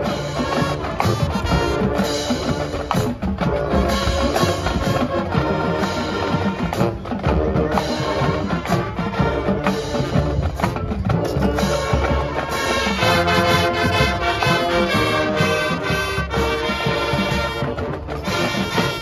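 Marching band playing: brass ensemble over a drum line with steady beats, the brass holding long notes in the last few seconds before the music stops just before the end.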